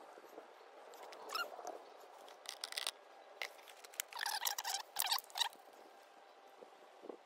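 Short bouts of high-pitched, squeaky whimpering calls from an animal: one about a second and a half in, another near three seconds, and a longer run between four and five and a half seconds in.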